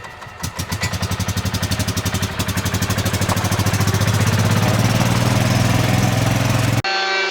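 Small gas golf-cart engine running with a fast, even beat of firing pulses that quickens and grows louder, then cuts off suddenly near the end as music begins.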